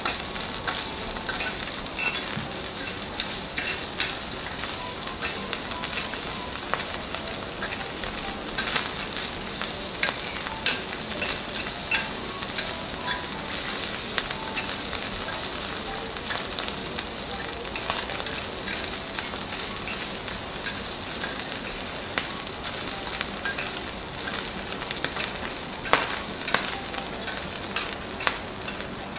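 Diced Kobe beef sizzling steadily on a hot flat iron teppan griddle, with scattered sharp clicks throughout.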